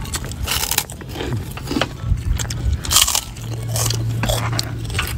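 Several people biting and chewing large, puffy fried krupuk crackers, giving irregular crisp crunches.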